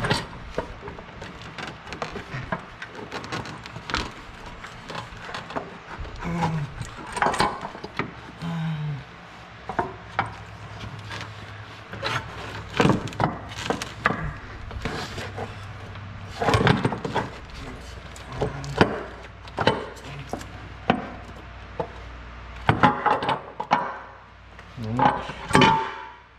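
Valve cover of a 24-valve Cummins 6BT diesel being worked back onto the cylinder head: scattered knocks, clunks and scrapes as it is angled into place past the hoses and wiring and set down.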